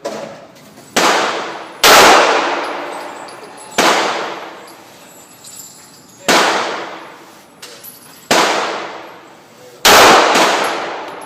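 Gunshots at a shooting range: about seven shots at irregular intervals, each with a long echoing decay.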